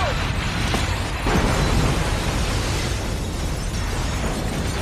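A large explosion: a fireball blast roaring continuously with heavy low rumble, and a fresh surge of the blast about a second and a half in.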